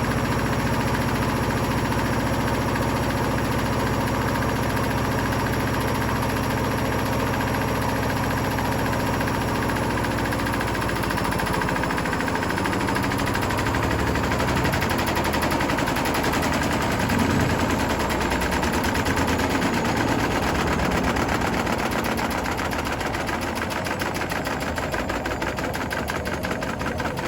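Hotpoint Smart Tech WMFUG742 washing machine running a spin with bricks in the drum: a steady motor whine at first, then from about halfway the speed wavers and the machine gives a rapid, loud banging and rattling. This is a heavily unbalanced load of bricks shaking the machine.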